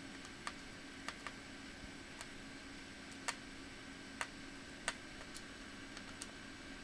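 Scattered light clicks and taps, about nine at irregular intervals, from small hard parts handled while working on a laptop, over a steady faint hum.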